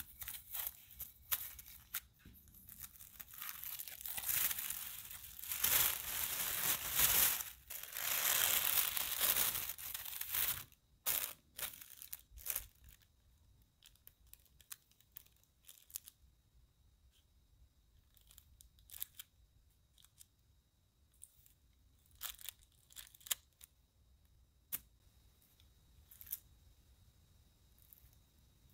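Plastic wrap crinkling loudly as a wooden rolling pin rolls over it and the sheets are handled, for about the first ten seconds. Then a scatter of short, quieter clicks and taps as a round metal cookie cutter presses circles out of the dough.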